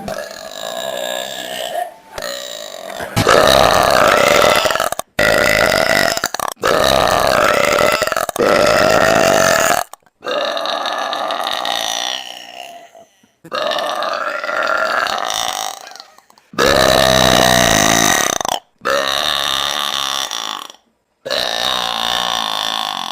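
A woman belching loudly: a string of about ten long, drawn-out burps, one after another with short breaks for breath between them.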